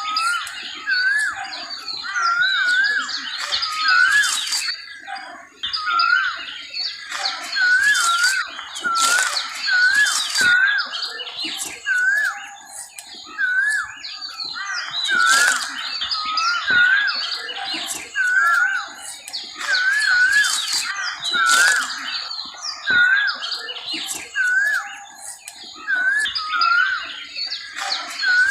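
Asian koel calling, a short rising note repeated over and over, over a busy chorus of other birds chirping.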